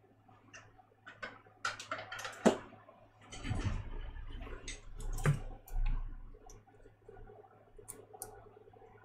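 Trading cards and clear plastic card sleeves being handled on a table: scattered light clicks and rustles of plastic, with a few soft thumps in the middle.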